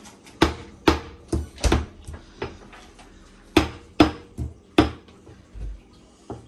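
Stone pestle pounding garlic in a heavy stone mortar. About eight irregular knocks come over five seconds, with a pause partway through.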